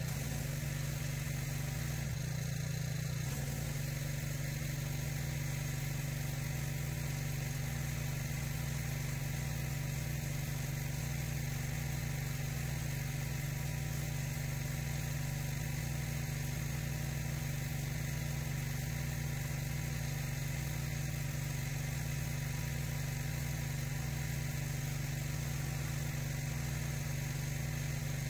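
Petrol pressure washer engine running steadily under load, with the hiss of the high-pressure spray striking the concrete path.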